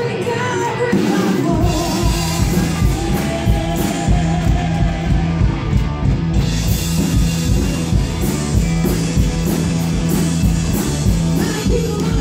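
Live rock-style worship band: a female lead vocalist singing over electric guitars and a drum kit. The drums and low end come in about a second and a half in, and the band plays on at full volume.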